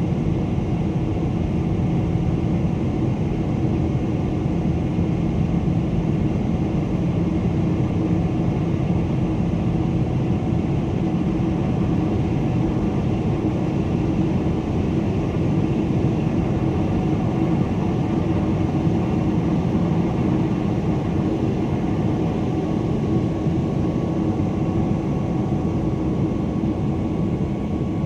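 Jet airliner cabin noise: the steady drone of the engines and airflow heard from inside the passenger cabin, with a constant low hum.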